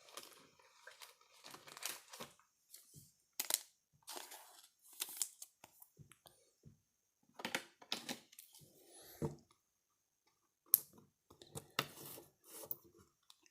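Trading cards and pack wrappers being handled: scattered, fairly quiet rustles, slides and light taps with short pauses between them.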